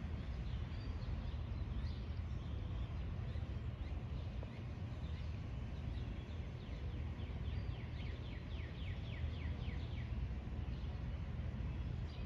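Birds chirping over a steady low outdoor rumble, with a fast run of short, falling chirps, about five a second, starting around seven or eight seconds in.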